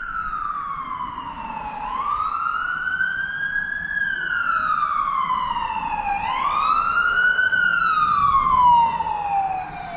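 Emergency vehicle siren wailing, its pitch slowly rising and falling in cycles of about four seconds.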